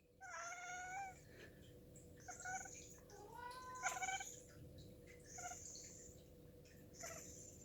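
Domestic cat meowing in a string of about five short, complaining calls, the first and third about a second long. It is the cat's scolding reaction to a human sneeze.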